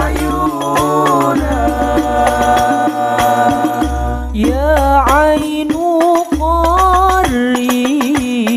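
Hadroh ensemble performing a sholawat: male voices sing a long, held melody that breaks into wavering, ornamented runs about halfway through, over rebana frame drums and a bass drum.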